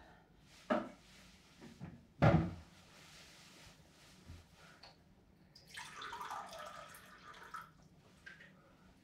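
Kitchen handling sounds: a sharp knock about a second in and a louder clunk a second later, then a kitchen tap runs into the sink for about two seconds.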